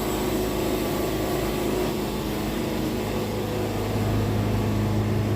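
Portable sawmill's engine running steadily, with a hum that deepens and grows stronger about four seconds in.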